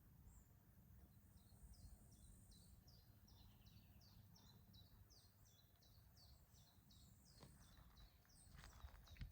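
Faint bird song: a rapid run of short, repeated high chirps, about three or four a second, lasting several seconds, with a few soft clicks near the end.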